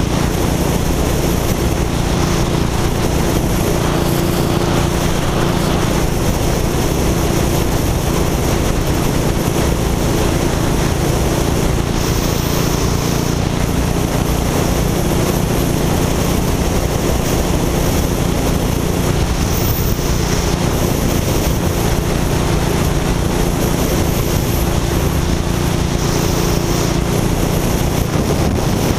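Motorcycle engine running steadily at cruising speed, heard on board, with wind rushing over the microphone. The engine note holds even, with no revving or gear changes.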